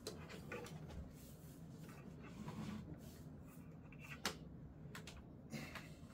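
Faint room tone with scattered small clicks and rustling handling noises, the sharpest click about four seconds in.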